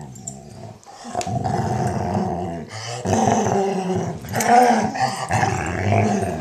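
German Shorthaired Pointer making long, low grumbling groans, her happy noises while a Weimaraner licks and cleans her ear. The groans come in two long stretches with a short break about three seconds in.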